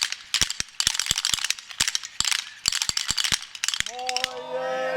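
Wooden Easter clappers (Klappern) clattering rapidly in several bursts with short breaks. Children's voices start a drawn-out call near the end.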